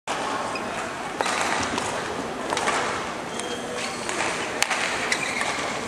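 Badminton rally: a few sharp cracks of rackets hitting the shuttlecock, the loudest about two-thirds of the way through, over a steady background murmur of voices and noise in a large sports hall.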